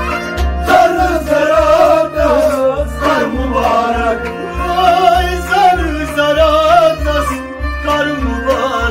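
Kashmiri Sufi devotional song: a man singing with a wavering, ornamented melody over held accompanying tones, with a clay-pot drum (nout) keeping a steady beat about twice a second.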